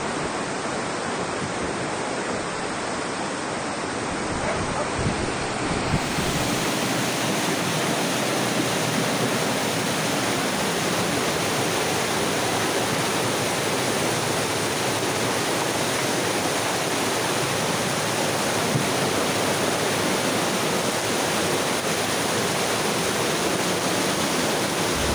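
Muddy floodwater rushing down a street in a fast torrent: a steady, unbroken noise of fast-flowing water, turning brighter about six seconds in.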